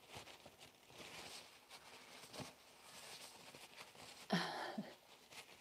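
Faint rustling and small handling noises of gloved hands being wiped clean, with a short louder burst about four seconds in.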